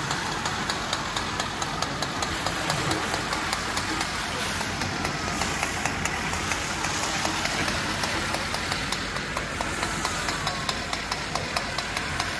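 Fire engine's diesel engine running steadily at the scene, with regular ticks through it, under a continuous hiss of water and steam from a hose stream on a burning car.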